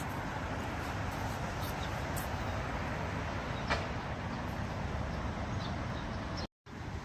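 Steady rumble of road traffic passing on a city street, with one sharp click a little after the middle; the sound cuts out completely for a moment near the end.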